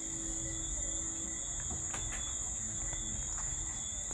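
Quiet steady background noise with a constant high-pitched whine, and a faint click about two seconds in.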